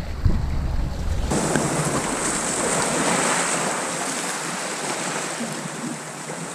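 Sea surf washing over rocks and a shingle beach, a steady hiss after a brief wind rumble on the microphone in the first second or so.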